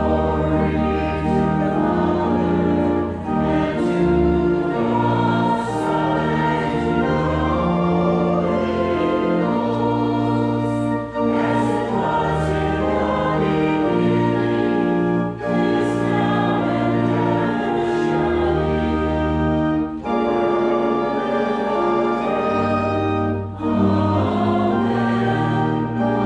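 A hymn sung to organ accompaniment: held organ chords that change every second or two under singing voices, with short breaks between phrases.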